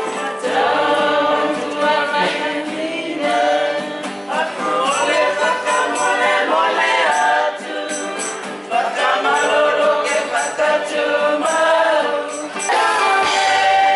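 A group of voices singing together in harmony, in phrases of a few seconds with short breaks between them.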